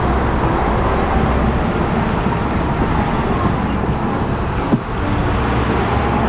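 Steady outdoor background noise with a low rumble, like a vehicle or traffic. A single short knock comes a little before the end.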